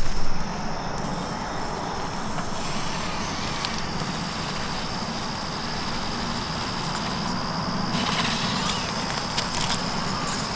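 Electric RC rock crawler's motor and drivetrain running steadily as it crawls over rock, with a steady high whine.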